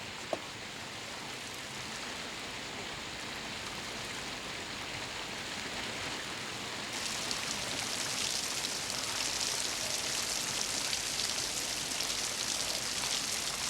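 Steady rain falling, growing heavier about halfway through.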